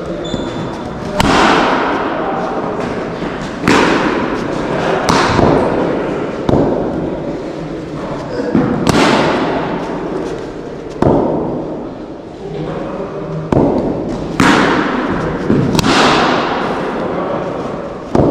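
Cricket bat striking the ball again and again during net batting practice: about ten sharp cracks one to two and a half seconds apart, each with an echoing tail.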